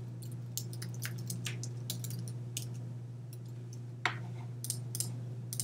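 Computer keyboard keys clicking now and then, a light tick every second or so, with one sharper click about four seconds in, over a steady low hum.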